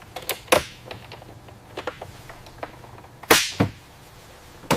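A scattering of sharp clicks and knocks over a faint low hum, with a louder snap about half a second in and the loudest, with a brief ring-out, about three seconds in.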